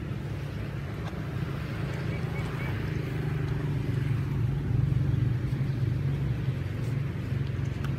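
A steady low rumble like a motor vehicle's engine running nearby, with a few faint, short high chirps about two to three seconds in.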